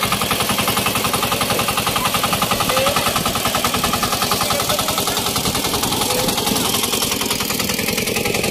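Turtle tiller (floating paddy hand tractor) engine running steadily, with a rapid, even chugging of firing pulses.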